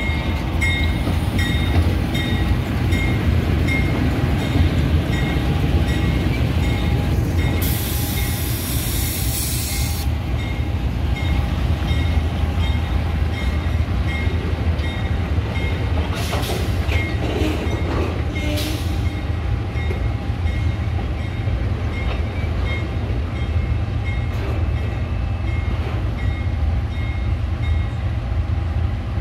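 GE U20C diesel-electric freight locomotives, twelve-cylinder engines, rumbling steadily alongside a train of tank cars. About eight seconds in there is a two-second burst of high hissing air, and a few metallic clanks follow a little later.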